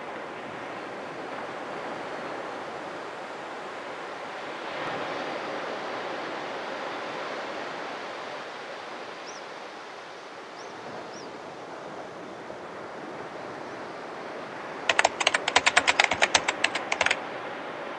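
Waves breaking on a sandy shore, a steady wash of surf that swells a little about five seconds in. Near the end comes a quick run of typewriter-like clicks for about two seconds, the loudest sound, a typing sound effect as title text appears.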